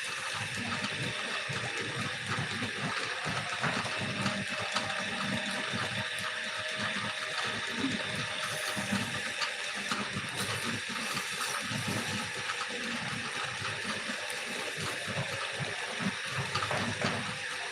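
Wood lathe running while a turning tool cuts the spinning wood: a steady, scraping hiss over an uneven low rumble.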